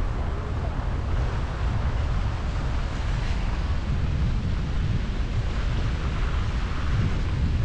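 A moving car's wind and road noise picked up by a microphone mounted outside the car: a steady low buffeting rumble of wind on the microphone, with tyre hiss from a wet, slushy road.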